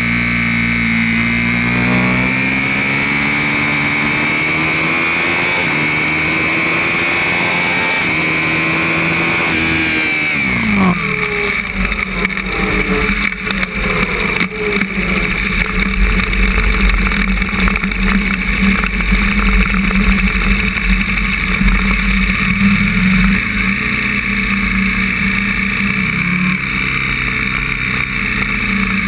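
Sport motorcycle engine running at high revs, its pitch climbing for about ten seconds and then falling away sharply as the engine cuts out. After that there is uneven rushing wind noise and low buffeting on the onboard microphone while the bike rolls on.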